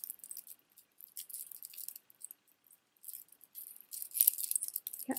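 Shell-and-bead necklace handled in the fingers: its shell discs, beads and small metal chain click and rattle lightly against each other in several short bursts.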